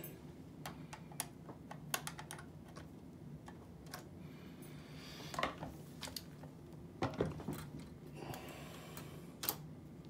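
Scattered metallic clicks and clacks from an Oliver typewriter's key and ribbon vibrator mechanism being worked by hand during adjustment. They come irregularly, with louder clacks about five and a half and seven seconds in.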